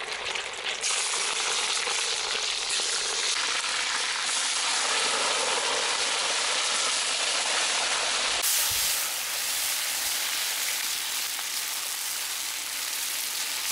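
Pork and beef chunks sizzling in hot sunflower oil in a cast-iron kazan, a steady loud hiss. The immediate, vigorous sizzle shows the oil is hot enough to sear the meat.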